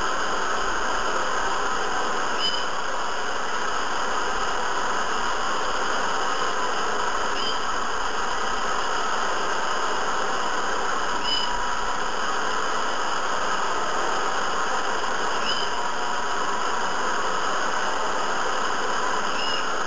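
Hair dryer running continuously with a steady, even blowing noise, with a faint short high chirp every few seconds.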